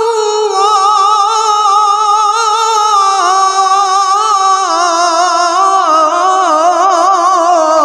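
A male qari reciting the Quran in a high voice, holding one long melismatic note on the word "aṭāʿa" with rapid ornamental wavers. The pitch steps down about five seconds in and again near the end, as he moves into "Allāh".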